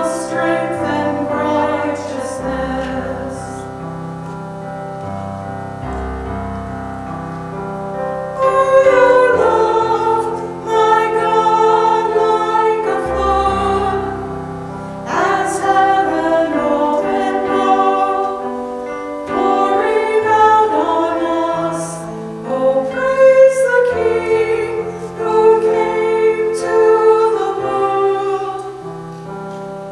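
Women singing a slow worship song in long held notes over instrumental accompaniment with a moving bass line.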